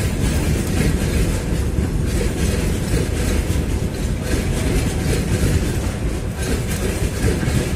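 Freight train of tank cars and gondola wagons rolling past, a steady rumble of steel wheels running on the rails.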